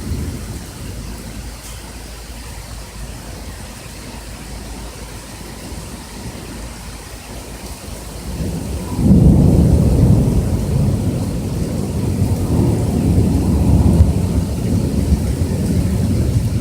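Heavy rain falling steadily, then about nine seconds in a loud, deep roll of thunder swells up and rumbles on for several seconds.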